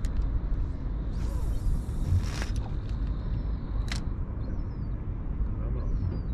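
Cast with a spinning rod: a hissing rush of about a second as the line runs off the reel, then a single sharp click a few seconds in, over a steady low wind rumble on the microphone.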